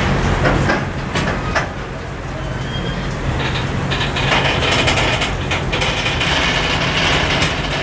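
Loaded container flatcars of a freight train rolling past at speed: a steady rumble of wheels on rail with repeated clicks, and a brighter hiss joining about four seconds in.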